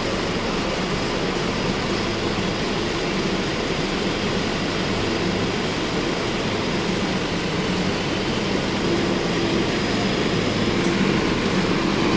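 Steady vehicle engine and traffic noise, a low engine hum throughout that grows slightly louder near the end.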